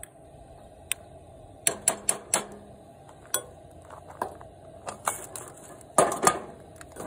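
Metal serving spoon and utensils clinking and knocking against dishes: a string of sharp clicks and knocks, the loudest two about six seconds in.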